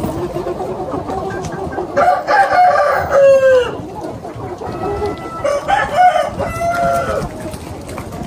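Minh Du roosters crowing twice, about two seconds in and again about five seconds in, each crow a drawn-out call that falls in pitch at the end, over the steady clucking of a large foraging flock of chickens.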